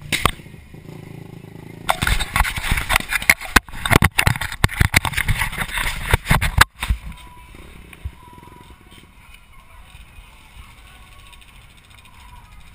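Handling noise from an action camera being moved and fitted: scraping, rubbing and knocking close to the microphone. It starts about two seconds in, is loud and irregular for about five seconds, and then stops, leaving a quiet steady background.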